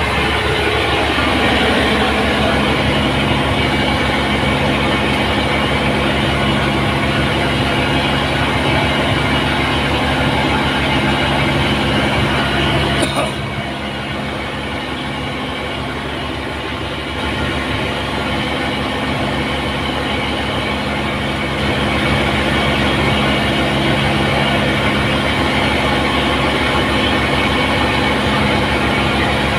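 An engine running steadily: a constant droning hum over rushing noise. There is a sharp click about 13 seconds in, after which it runs a little quieter for a few seconds before building back up.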